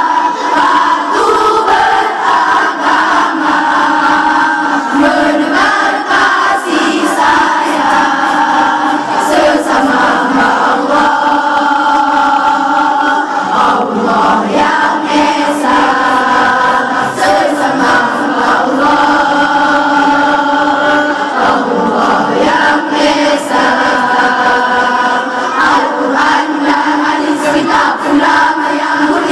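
A choir singing, many voices together holding long notes that change pitch every second or two.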